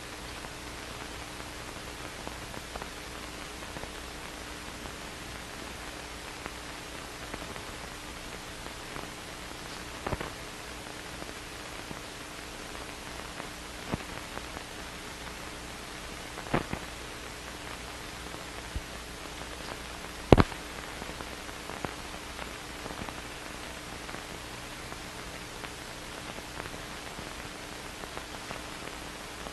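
Steady hiss of an old film soundtrack with a faint steady hum, broken by a few scattered clicks and pops, the sharpest about two-thirds of the way through.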